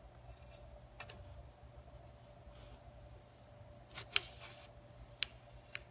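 Polystyrene foam block crackling and clicking as it is slid across the cutter table through the hot wire: a few sharp clicks about a second in, a louder cluster near the middle and two single clicks near the end, over a faint steady hum.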